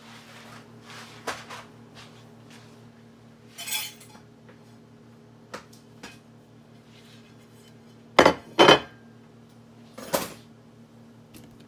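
A ceramic dinner plate being handled and set down on the kitchen counter: light clicks and a rustle, then two loud clattering knocks about eight seconds in, half a second apart, and another about two seconds later. A faint steady hum runs underneath.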